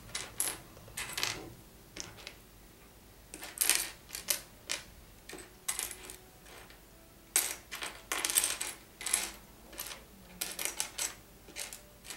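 Loose plastic Lego pieces clicking and clattering in irregular bursts as a hand rummages and sorts through them on a wooden desk.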